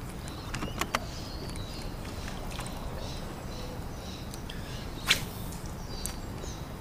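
Fishing rod and reel being handled for a cast: a few small clicks about a second in, then one brief sharp swish about five seconds in as the cast is made. Faint bird chirps and a steady outdoor hiss sit underneath.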